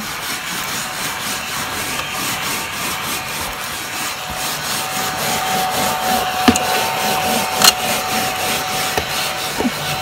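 Crumby cordless mini vacuum running as it is rubbed back and forth over car floor carpet: a steady hiss with the scrape of the nozzle on the pile. A faint steady whine comes in about halfway, and there are two sharp clicks in the second half.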